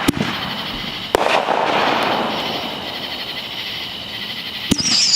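Consumer fireworks going off: sharp bangs just after the start, about a second in and near the end, with crackling in between. The last bang is followed by a high whistle that falls slightly in pitch.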